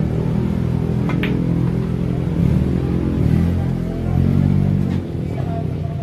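A motor engine running with a steady low drone that rises and falls a few times midway, plus one sharp click of billiard balls about a second in.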